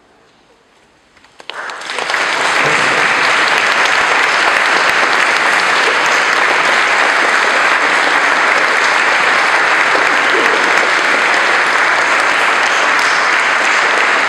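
Audience applauding after a short lull: the clapping breaks out about a second and a half in, swells within half a second and then stays steady and loud.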